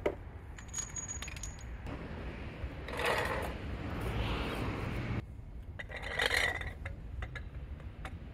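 Small metal objects clinking and scraping as they are handled, in two bouts, the second with a short ringing clink.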